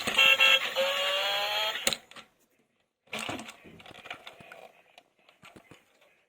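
Music with a rising pitch glide plays and stops abruptly about two seconds in. After a second's pause come scattered small clicks and light rustling, like small objects being handled.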